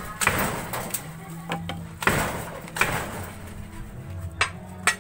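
Sharp knocks and clunks, about five in five seconds, from small plant pots and a hand tool being handled and set down.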